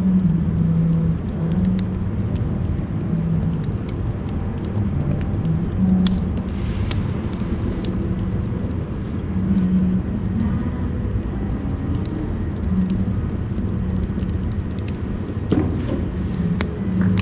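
Wood fire burning in a stove: a steady low rumble with a hum that shifts in pitch, and scattered crackles and pops from the burning firewood.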